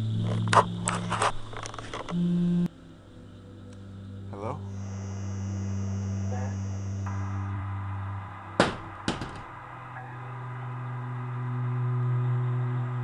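A low, steady synthetic drone from the film's score, with several sharp clicking hits in the first two seconds and two more near the middle, plus a brief high steady tone partway through.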